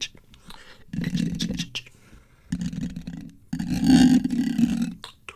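Close-miked wet mouth sounds layered over brushing and scratching on the microphone, in three bursts of about a second each with short pauses between, the last and loudest near the end.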